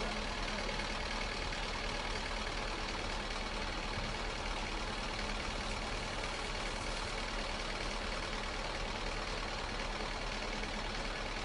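A large engine running steadily at an even level, like a truck or lifting machine idling.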